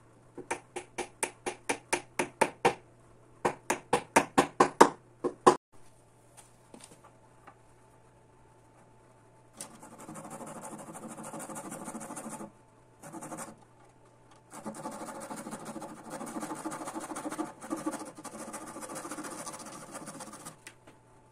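A hammer tapping in two quick runs of light blows, about five a second, the second run louder. Then a thin flexible flush-cut saw rasping back and forth in long stretches, trimming the spindle ends flush with the bench's back rail.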